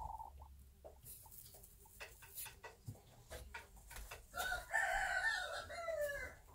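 A chicken gives one long call of about two seconds, the loudest sound here, falling in pitch at the end. Light clicks and rustles come before it.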